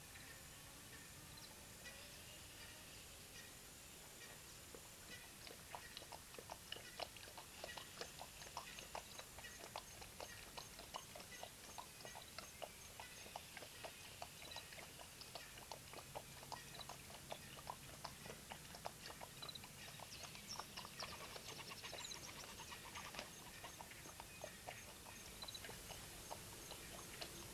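A cheetah lapping water at a waterhole: a long run of soft, wet clicks, about three a second, starting about five seconds in. Faint high chirps sound in the background.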